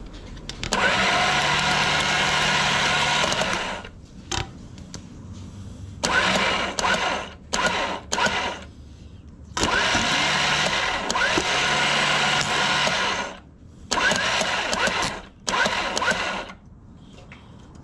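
Badland 9000 electric winch motor running in short powered bursts of one to four seconds, turning the drum to wind Gorilla Tape onto it, with quieter pauses between runs.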